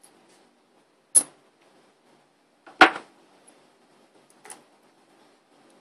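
Three sharp metallic clicks of a steel 1911 barrel bushing and expander die being taken off and handled at a bench vise, about a second apart; the middle one, near the middle, is the loudest.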